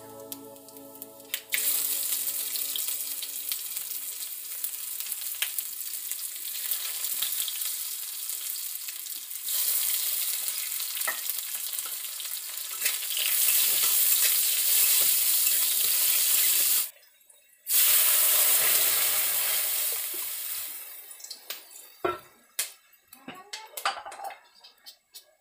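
Food frying in hot oil in a steel wok: a steady sizzling hiss that sets in abruptly a second or so in, breaks off for a moment about two-thirds of the way through, then dies down into scattered clinks and scrapes of stirring near the end.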